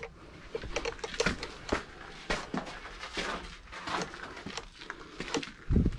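Footsteps and shoe scuffs on stone steps and a gritty dirt path, irregular and a little under two a second. A loud low thump near the end.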